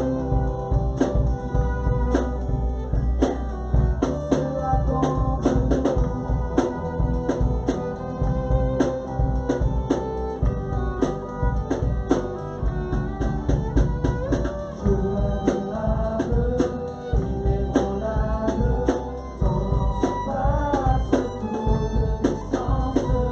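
Music: a song with a steady drum-kit beat, bass and a singing voice.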